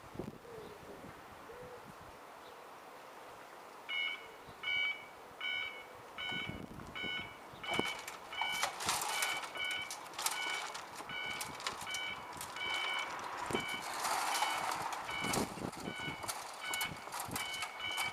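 Automatic level crossing warning alarm starting up about four seconds in, beeping steadily at a little over one beep a second, the signal that the crossing is closing for an approaching train. A pigeon coos faintly at the start, and irregular sharp clicks and knocks join the beeping from about eight seconds in.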